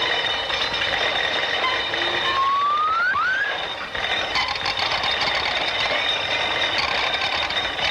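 Hissy early sound-film cartoon soundtrack with a steady high-pitched tone and two short rising whistle-like glides about two and a half to three and a half seconds in.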